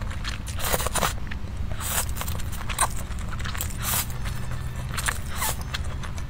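Slurping and chewing of saucy noodles, a series of short wet mouth sounds about one every second, over a steady low hum.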